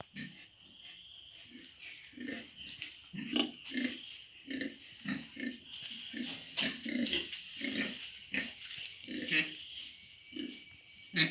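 Pigs grunting, short low grunts coming about twice a second, over a steady high hiss. A sharp knock sounds near the end.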